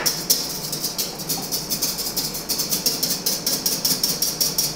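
Wire whisk beating zabaglione in a stainless steel bowl over heat, scraping and clinking against the metal in a quick, even rhythm. The custard is kept moving so the egg yolks thicken without setting.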